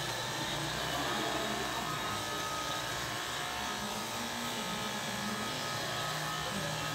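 Electric hair clippers running with a steady buzz, cutting hair on the side and back of the head.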